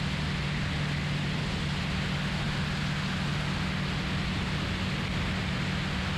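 Turbocharged Rotax 915iS engine and propeller of a VL3 Evolution ultralight at high climb power just after takeoff, heard from outside under the wing. A steady low engine drone sits under a loud, even rush of wind.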